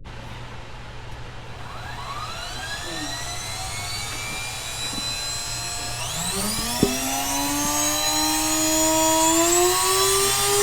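Vacuum-cleaner motor spinning a CD up to speed: a whine that climbs steadily in pitch and grows louder, sounding like a jet engine, with a fresh rise about six seconds in and a single sharp click about a second later.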